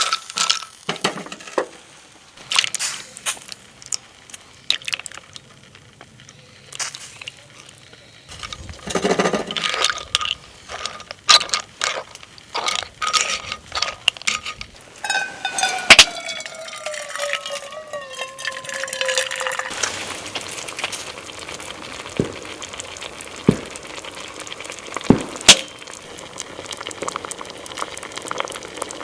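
Camp cooking: scattered clinks and knocks of cookware and utensils, a short falling squeal about halfway through, then a steady hiss of food cooking on the stove, broken by a few sharp knocks.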